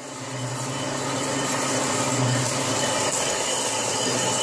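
1935 Reed Prentice engine lathe running under power, turning a steel flange: a steady mechanical drone of the machine with the hiss of the cutting tool in the steel, swelling in over the first second.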